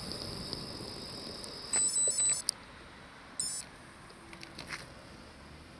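Two bursts of high electronic beeping, the first about two seconds in and a shorter one about a second later, over faint road and wind noise.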